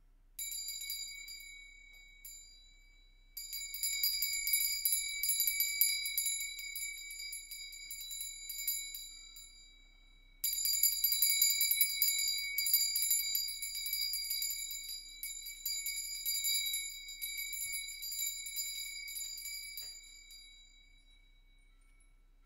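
Metal chimes are set ringing three times: a light stroke at the start, a stronger one about three seconds in, and another about ten seconds in. Each rings on with clear high tones under a jingling shimmer, and the whole sound fades out a couple of seconds before the end.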